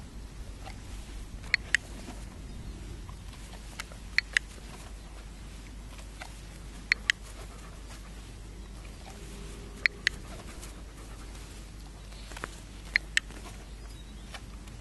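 Dog-training clicker pressed five times, about every three seconds, mostly as a quick double click, marking each correct response. A dog pants steadily underneath.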